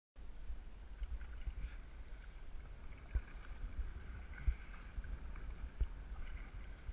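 Wind rumbling on the camera microphone and water splashing against a kayak's hull as it is paddled through choppy sea, with a few dull knocks.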